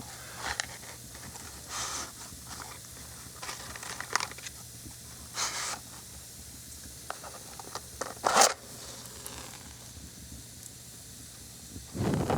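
Burning matches crackling and popping softly, with one short, loud scrape about eight seconds in, a match being struck. Near the end a long breath is blown out over the flame, buffeting the microphone.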